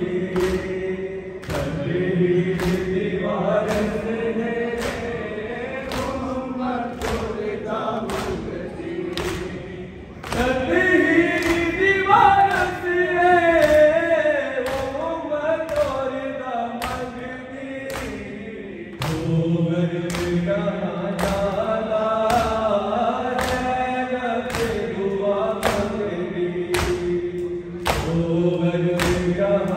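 A congregation of men chants a Shia noha (lament) in unison while beating their chests in matam: sharp slaps in steady time, about one and a half a second. Partway through, a solo voice rises higher over the group, then the chorus returns.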